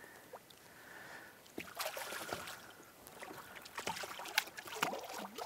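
Faint, scattered splashing and sloshing of water at the side of a boat as a hooked smallmouth bass is brought to the surface, in short bursts about a second and a half in and again near the end.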